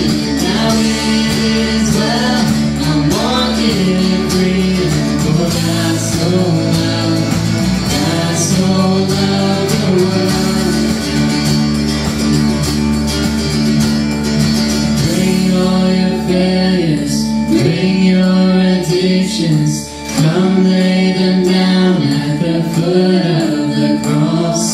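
A worship song: a voice singing over guitar accompaniment.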